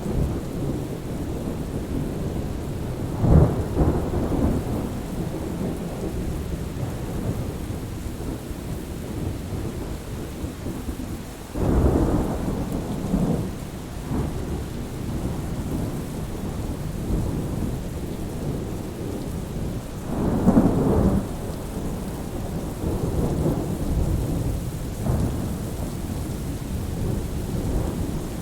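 Steady rain falling under a thunderstorm, with rolling rumbles of thunder that swell up about three seconds in, again around twelve seconds, and again around twenty seconds.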